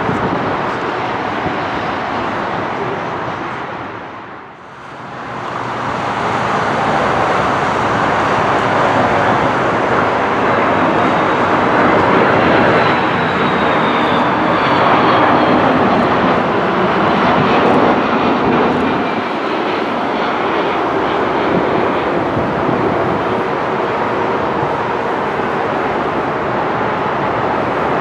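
Jet airliner engine noise: an Airbus A380 rolling out just after touchdown. The sound dips away briefly about four seconds in, then builds again into a steady rush of jet noise from an Airbus A330 on final approach, with a faint high whine that slides slowly down.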